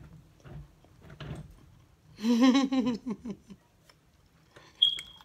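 A woman chewing a mouthful of fried chicken sandwich, with faint mouth sounds, then humming a wavering, appreciative "mmm" about two seconds in. Near the end there is one sharp click with a brief high ring.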